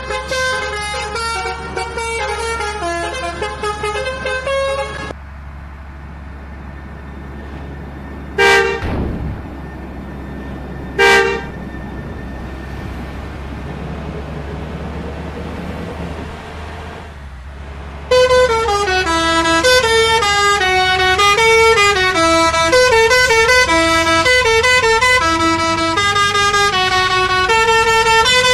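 Indonesian 'telolet' bus horn, a multi-tone musical horn playing a quick melody of shifting notes that cuts off about five seconds in. After a quieter stretch with two short single blasts, a longer, louder tune of rising and falling notes plays.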